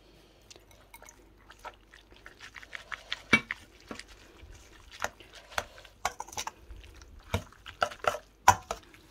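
Metal spoon clinking and scraping against a stainless steel mixing bowl while vermicelli and seafood salad are tossed. The clinks come irregularly, with a few sharper knocks, the loudest about three seconds in and again near the end.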